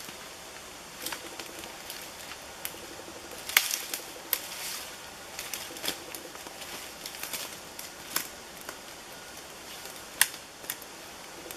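Dry twigs and sticks cracking and forest litter rustling as a person moves through brush and handles dead branches. Irregular sharp snaps throughout, the loudest about three and a half seconds in and again near ten seconds.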